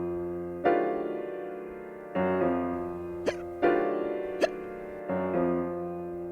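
Piano music, slow chords each struck and left to fade, with a person hiccuping twice, about three seconds in and again about a second later.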